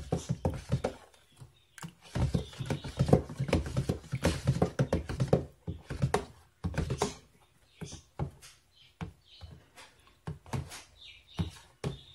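A spoon stirring horchata in a plastic pitcher, knocking and clicking rapidly against the pitcher's sides as the liquid swirls. The clicks are dense for the first half, then come sparser and quieter.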